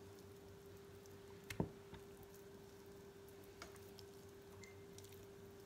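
Quiet room with a faint steady hum. One soft knock comes about a second and a half in, and a few faint ticks follow later, as a raw chicken leg quarter is cut apart at the joint and the pieces go down on a plastic cutting board.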